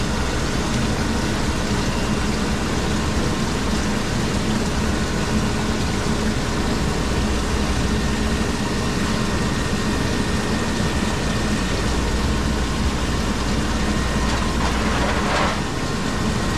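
Machinery running steadily: a constant low hum under an even wash of mechanical noise, with a short hiss near the end.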